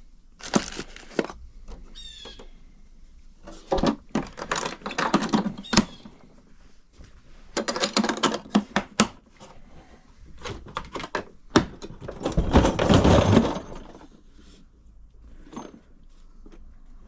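Irregular clattering, clicking and thunks of parts and packaging being handled while rummaging through stored plumbing supplies, with a longer stretch of busier rattling near the middle.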